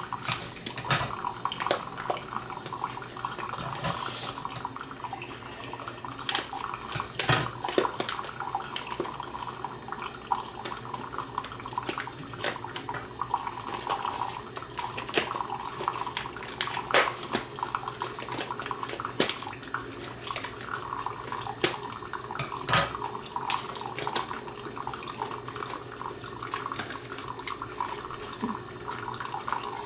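Aimami single-serve coffee maker dispensing brewed coffee into a cup: a steady stream of liquid splashing, with frequent sharp splashes and drips.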